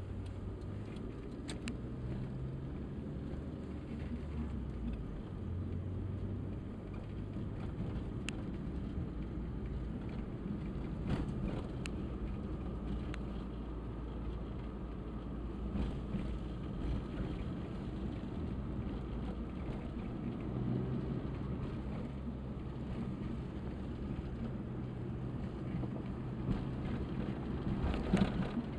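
Engine and road noise heard from inside a moving car, a steady low rumble whose engine note shifts up and down a few times, with a few scattered clicks.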